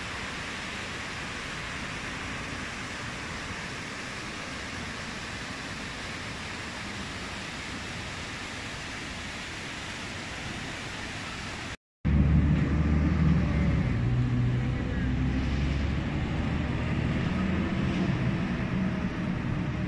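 Water of the Trevi Fountain pouring and splashing over its rock cascades into the basin, a steady rushing hiss. About twelve seconds in it cuts to city traffic: car engines running past with a louder low rumble.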